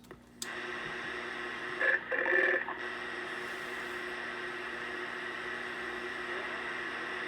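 Radio receiver hissing with steady band static between transmissions, with a faint hum of steady tones through it. A click comes about half a second in, and a short garbled burst of a weak signal comes through around two seconds in.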